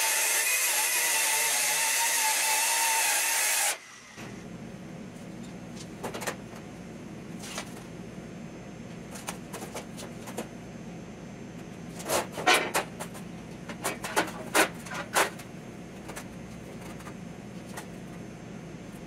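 Handheld circular saw cutting through thin sheet steel with a steady high whine that stops abruptly about four seconds in. After that, quiet shop background with scattered taps and a cluster of sharp knocks in the middle as tools are handled on the steel sheet.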